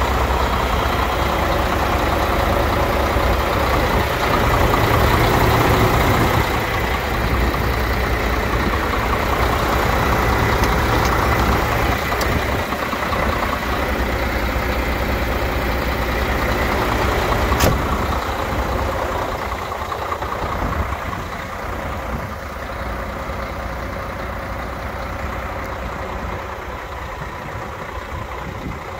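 Diesel engine of a MAN 28.464 truck idling steadily, a large straight-six, growing a little quieter near the end. A single sharp click a bit past halfway.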